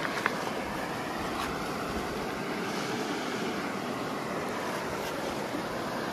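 Steady rushing water of a mountain stream, with a couple of faint clicks in the first two seconds.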